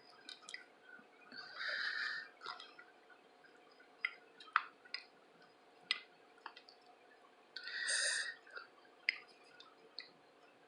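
Quiet close-up eating sounds: scattered faint mouth and utensil clicks, with two short soft hisses, one about a second and a half in and one near eight seconds.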